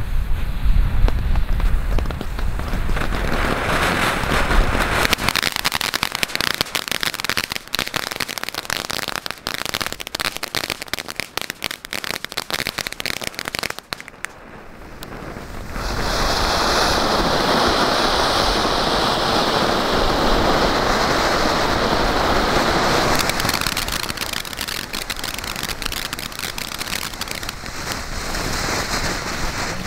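Small youth-category firework fountains burning one after another, hissing as they spray sparks. A stretch of dense crackling in the first half gives way, after a brief lull about halfway through, to a steadier, louder hiss that eases off somewhat later.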